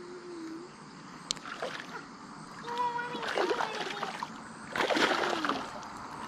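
Hooked trout thrashing at the pond surface by the line, with two bursts of splashing about three and five seconds in.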